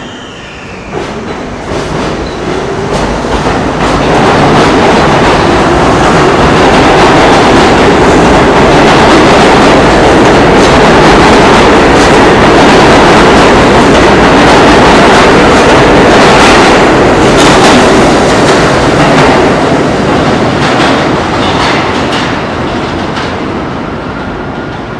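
R32 subway train pulling out of an underground station: its rumble builds over the first few seconds into a loud, steady roar of motors and wheels as the cars rush past, with a run of wheel clacks. The sound then fades as the last car leaves into the tunnel near the end.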